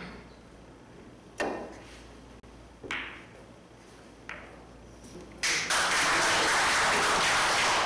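Pool balls struck during a shot: three sharp clicks about a second and a half apart. About five seconds in, loud applause breaks out.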